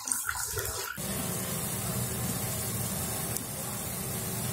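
Pot of rib soup at a hard rolling boil, bubbling steadily. It cuts in abruptly about a second in, after a brief, thinner water-like sound.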